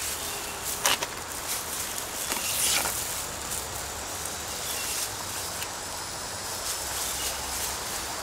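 Hands digging through potting soil and potato plants in a container: dry rustling and scraping, with a sharp click about a second in and a louder scratchy stretch near the three-second mark.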